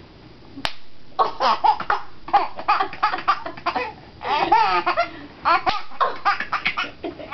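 A sharp snap of a belt being pulled taut near the start, then a baby laughing hard in repeated bursts of belly laughs.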